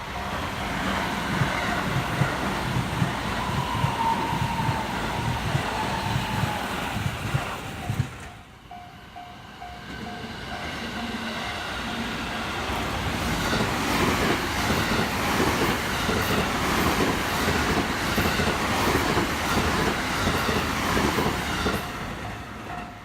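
JR Kyoto Line electric trains running past at a level crossing, wheels clattering over the rail joints. A first passage ends abruptly about eight seconds in and a second one builds up after it, while the crossing's warning bell dings over and over, heard in the lull and again near the end.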